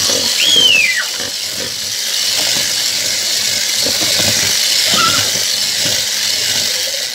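Electric hand mixer running steadily, its beaters whisking a thin batter of eggs, sugar, oil and galeta flour in a bowl. A brief high squeal rises and falls about half a second in.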